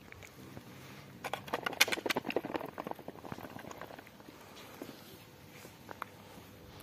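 Small pieces of food tipped from a plastic tray, pattering onto asphalt and against the tray in a quick run of taps starting about a second in, then dying away to a few faint taps.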